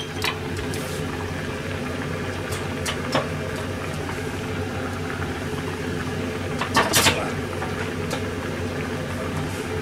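Broth of simmered Pacific cod roe and vegetables boiling in an aluminium saucepan: a steady bubbling hiss. A short clatter comes about seven seconds in.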